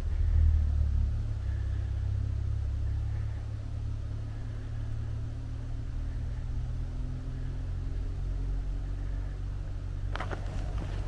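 Low, steady rumble of wind buffeting the microphone, strongest in the first second. About ten seconds in, footsteps begin on a dirt and gravel trail.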